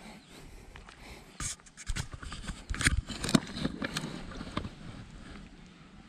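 Crunching steps and scrapes on a rocky, gravelly shoreline, an irregular run of sharp cracks and rustles that is busiest between about one and a half and four and a half seconds in, then dies down.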